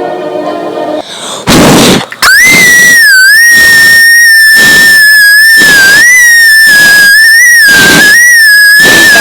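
A deliberately annoying, ear-piercing high-pitched shriek, played at full volume and distorted. It starts about two seconds in, after a short burst of noise, and is held to the end, wavering slightly in pitch. The first second holds a little steady music.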